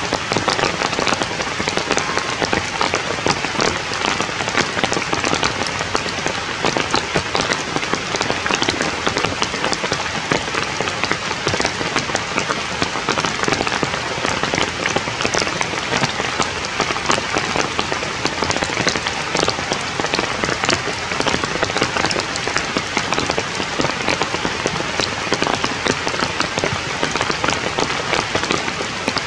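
Steady rain falling on forest leaves: a dense, even patter of drops that does not let up.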